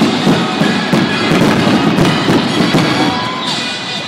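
A fireworks finale: aerial shells bursting in rapid succession with dense crackling, over loud music playing throughout.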